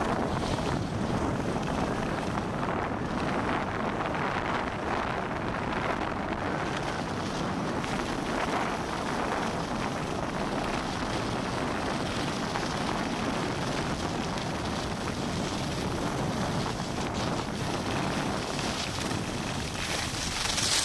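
Steady rushing noise of skiing downhill: wind buffeting the microphone and skis sliding over packed snow.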